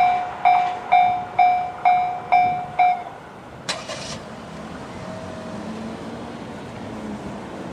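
JR standard electronic railway-crossing alarm ringing its ding-ding tone about twice a second, seven strikes, then cutting off about three seconds in once the train has cleared. A single sharp clunk follows shortly after, then a faint low hum.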